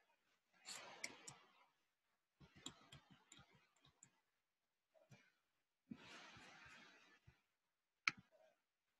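Faint clicks of a computer mouse among short bursts of rustling handling noise, cutting in and out, with one sharper click near the end.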